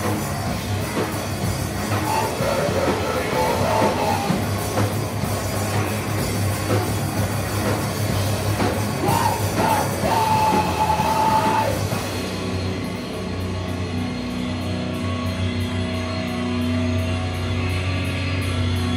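A live heavy rock band playing loudly, with distorted guitars, drums and vocals. About two-thirds of the way through, the drums and cymbals drop out and held guitar and bass notes keep ringing.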